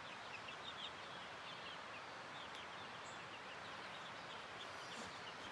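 Young five-week-old chicks peeping softly, many short high calls, over a steady outdoor hiss; the peeps thin out after about three seconds.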